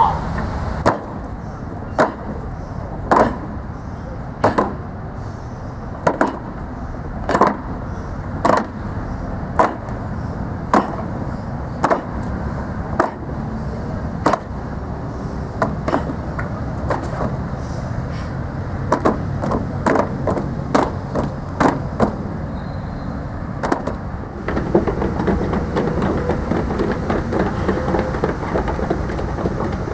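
Heavy boots stamping on a hard stage floor in a slow, even beat, about one stamp a second, quickening in the middle. A dense shuffling noise replaces the beat near the end.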